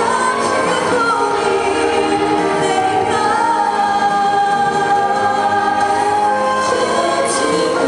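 A mixed vocal group of one male and three female singers singing a slow Korean pop ballad in harmony into handheld microphones, amplified through a PA, with long held notes.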